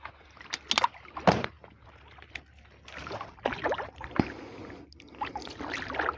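A small boat being paddled through calm water: several irregular paddle strokes splashing and sloshing.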